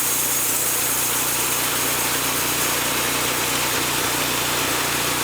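Homemade sawmill cutting a tulip poplar log: the engine runs steadily under load while the blade hisses through the soft wood.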